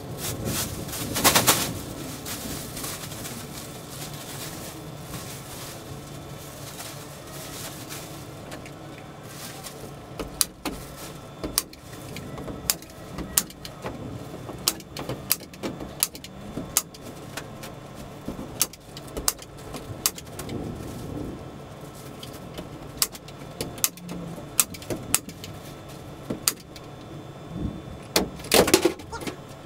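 Plastic garbage bag crinkling, then a staple gun fired again and again, sharp snaps about one or two a second from about a third of the way in, as the bag is stapled over an empty window frame in the trailer wall.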